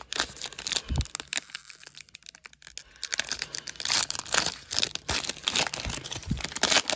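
Crinkling and rustling of a foil trading-card pack wrapper and its cards being handled. It goes quiet for a moment about a second and a half in, then resumes.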